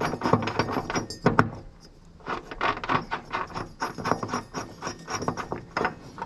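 Large 7/8-inch pulley nut being spun on by hand onto the threaded shaft of a new mower-deck spindle: irregular small metal clicks and scraping, with one sharper click about a second in.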